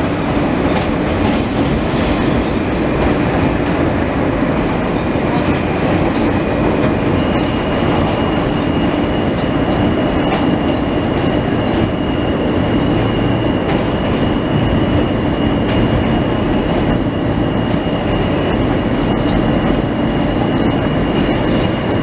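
New York City subway train running at speed, heard from inside the car: a steady, loud rumble and rattle of wheels on track. A thin, steady high whine joins about seven seconds in.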